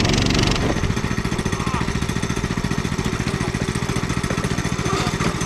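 Small go-kart engine idling with an even, rapid putter; it settles to idle from a higher, rougher run about half a second in.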